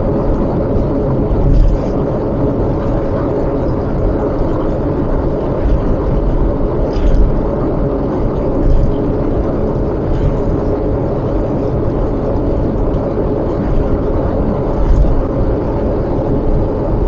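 Steady road and engine noise of a car being driven, a dense low rumble with a faint steady hum, broken by a few brief thumps.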